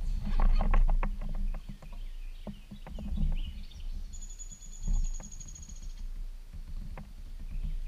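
Scattered knocks and clicks as gear is handled against the hull of a Jackson Kayak Coosa HD fishing kayak, busiest in the first second or so, over a low rumble. From about four seconds in, a high, even trill sounds for about two seconds.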